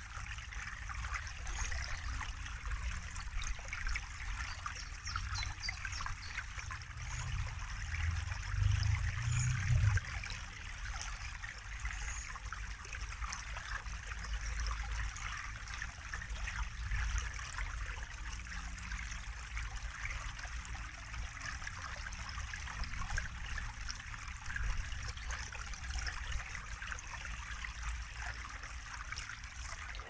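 Small woodland brook trickling and splashing over a low step among tree roots, a steady water sound. A low rumble swells briefly about eight to ten seconds in.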